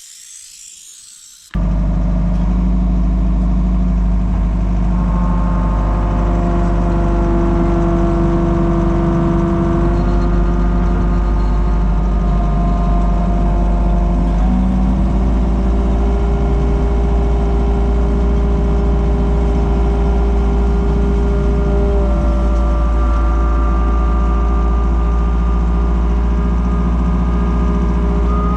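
Komatsu skid steer's engine running hard and steady, starting suddenly about a second and a half in. Several steady whining tones step up or down in pitch a few times over the engine's drone.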